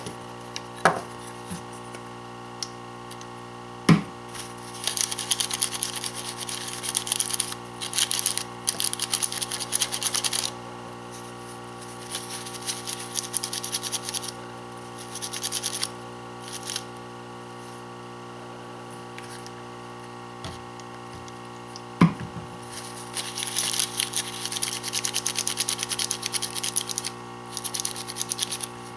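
A paper wipe scrubbed over a printed circuit board in three bouts of scratchy rubbing, cleaning the board where a chip has just been desoldered. A few sharp knocks, the loudest about four seconds in and near the middle, over a steady background hum.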